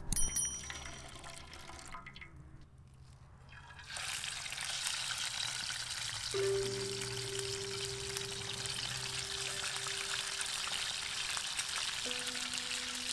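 Fish fillets frying in hot oil in a cast-iron skillet, a steady dense sizzle that starts about four seconds in. A short click and chime come at the very start, and a held music note sounds over the sizzle in the second half.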